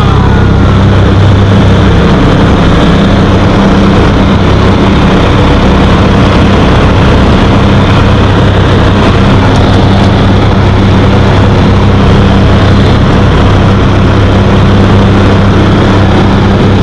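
Engine and propeller of a small high-wing propeller plane running steadily through the takeoff and climb, heard from inside the cabin as a loud, unchanging drone with a deep hum.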